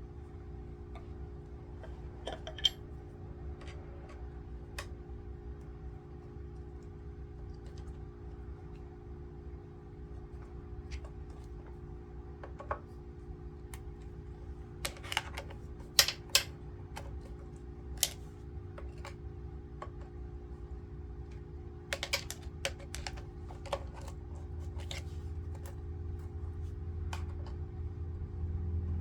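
Scattered light clicks and taps of tools and small metal parts being handled while a BSA A65 motorcycle's primary side is taken apart, over a steady low hum.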